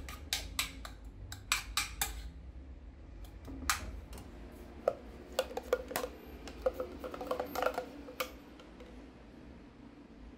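Utensils clicking and clinking against cookware: a quick run of sharp clicks in the first two seconds, then scattered ringing clinks until about eight seconds in.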